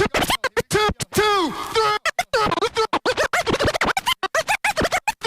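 Intro music with turntable scratching: rapid, chopped sweeps that slide up and down in pitch.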